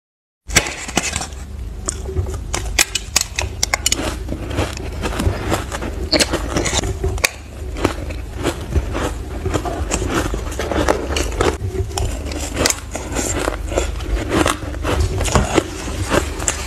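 Close-up crunching and chewing of matcha-dusted shaved ice: dense, crackling bites with many sharp clicks, starting about half a second in, over a steady low hum.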